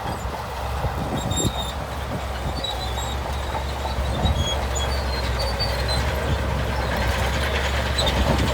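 Shantui crawler bulldozer at work: its diesel engine running with a steady low drone, with the rattle and faint squeaks of its tracks, growing somewhat louder toward the end.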